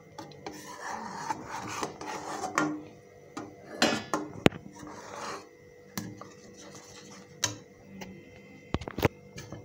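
A spatula scraping and stirring round the bottom and sides of a metal pan of hot milk being reduced and thickened, in uneven strokes, with a few sharp knocks of the spatula against the pan.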